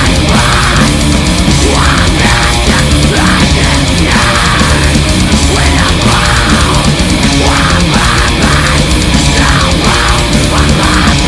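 Loud heavy metal song with distorted guitars and drums, played without a break.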